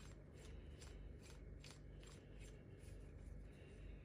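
Faint handling noise: a series of light clicks and small metal-and-plastic rubs as hands turn a PCP air-rifle pressure-regulator valve and tighten its lock screw, over a low steady hum.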